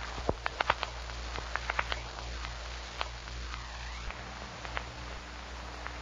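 Footsteps crunching on icy, crusted snow, with a quick run of sharp crunches in the first two seconds and then only a few more. A faint whine dips and rises briefly a little past the middle.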